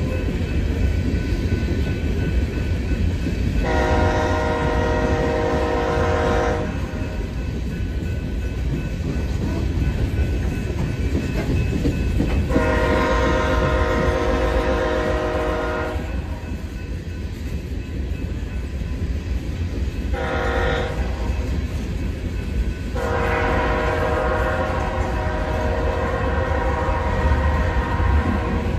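Freight locomotive air horn sounding the grade-crossing signal: long, long, short, long. Under it, the steady rumble and clickety-clack of loaded coal hopper cars rolling past.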